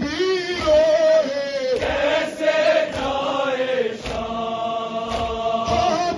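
Men's voices chanting a Shia nowha lament together, the melody settling into a long held note in the second half. Dull thuds of matam chest-beating recur underneath.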